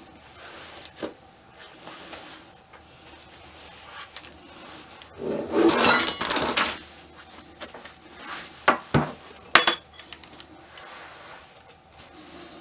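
Handling noises as a foam work mat and a ball-jointed doll in fabric clothes are moved about: a loud rustling scrape about five to seven seconds in, then three sharp knocks on the desk a couple of seconds later.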